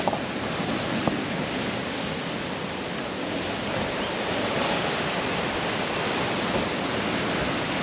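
Heavy ocean surf breaking, a steady wash of noise.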